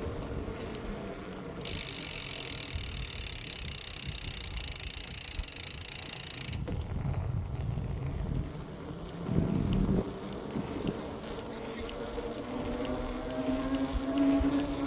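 Specialized Turbo Tero 5.0 e-bike being ridden, with a repeated light ticking from the rear wheel. The owner and the dealer cannot trace its cause, but it goes away when the rear tyre pressure is very low. A hiss comes in the first half, and near the end a rising motor whine joins.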